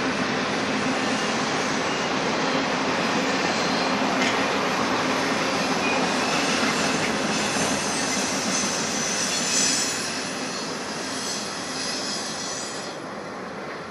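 Double-stack container freight train rolling across a railway bridge: a steady rumble of wheels on rail, with high wheel squeal coming in about seven seconds in. The sound eases off over the last few seconds as the end of the train draws near.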